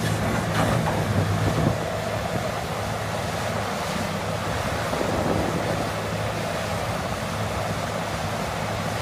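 Caterpillar 6015B hydraulic mining excavator's diesel engine running steadily under load as it digs into rock, with wind rushing on the microphone.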